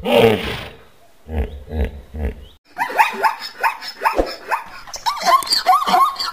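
Hippopotamus grunting in a few deep, pulsed honks. About three seconds in, a zebra takes over with a fast run of high, yelping barks, two or three a second.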